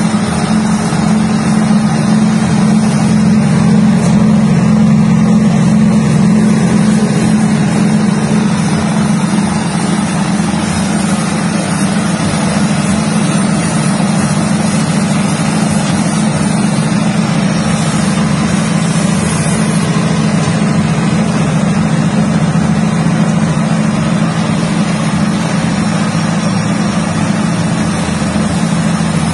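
Peanut-shelling machine running steadily, driven by its small engine, with an even drone that does not change.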